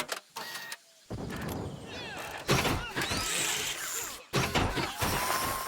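Cartoon fight sound effects: a string of hits, crashes and sweeping whooshes, with a short lull about a second in and a steady high tone near the end.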